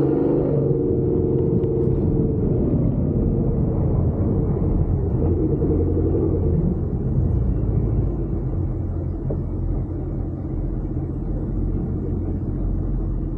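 Off-road truck engine running while driving, its pitch shifting over the first few seconds, then settling into a steady low rumble.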